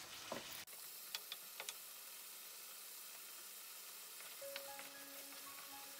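Chicken pieces sizzling in oil in a karahi, with a few light clicks of a wooden spatula against the pan about a second in. Soft music with long held notes comes in about four and a half seconds in.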